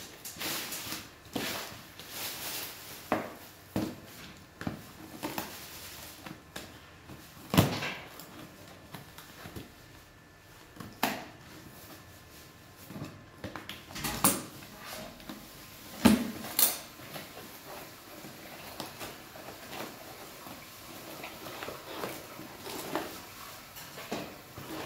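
Cardboard parcel being opened by hand: scissors cutting the packing tape, then the cardboard flaps and crinkle-cut paper filler rustling as they are handled. Scattered sharp clicks and knocks come from the scissors and box, a few of them standing out loudly.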